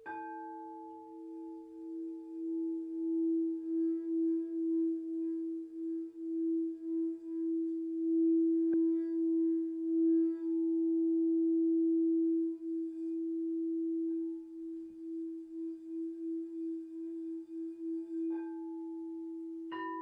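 Frosted quartz crystal singing bowls. One bowl is rubbed around its rim and holds a strong, low, steady tone that swells and wavers. Other bowls are struck at the start and twice near the end, each leaving a higher note ringing over it.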